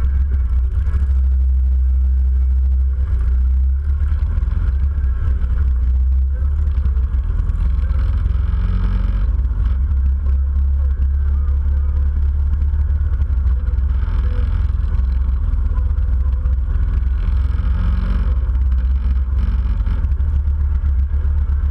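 Motorcycles riding in a group at steady road speed, heard from a bike-mounted camera: a steady low rumble of engines and wind on the microphone.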